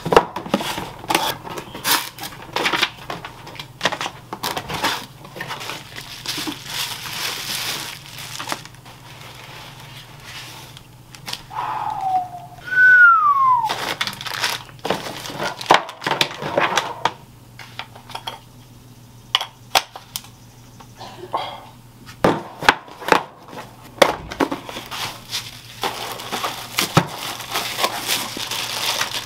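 Crinkling and rustling of camera packaging handled by hand: cardboard box flaps, plastic bags and bubble wrap, in an uneven run of crackles and taps. About halfway through there is a short squeak that falls in pitch.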